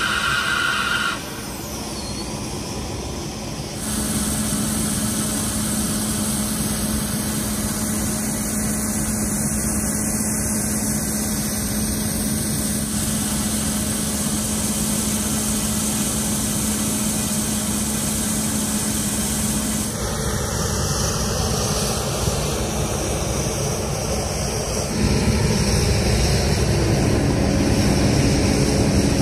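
Boeing 787-9 lavatory vacuum blower whining in the first second, as used on the ground, then a steady drone of machinery around a parked airliner with a low hum. The drone changes abruptly several times.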